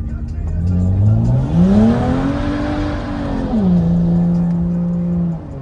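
BMW 335i's turbocharged 3.0-litre straight-six revving up hard, holding high revs with a rush of tyre noise, then dropping sharply and holding lower revs before cutting off suddenly near the end.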